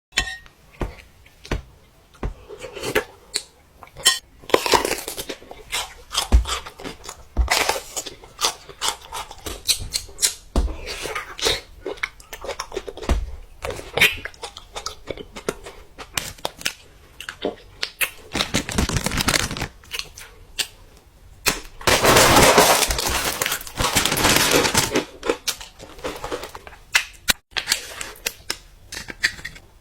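Close-miked mukbang eating sounds: many sharp, irregular crunches and clicks of biting and chewing, with two longer stretches of steady noise, like rustling or crunching, a little past the middle and again later.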